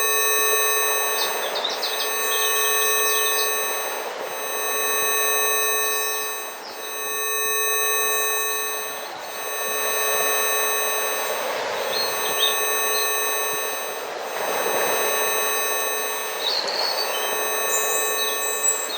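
Several steady electronic tones (Rife frequencies) held together, from a low hum up to a thin high whine. Under them is a nature recording: a rushing noise that swells and fades about every four seconds, with bird chirps now and then, most near the start and toward the end.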